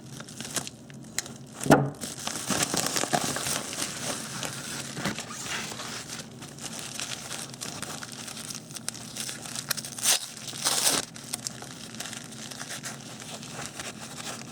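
Packaging being handled and unwrapped: irregular crinkling and tearing, with a sharp knock about two seconds in and a louder burst of rustling near ten seconds.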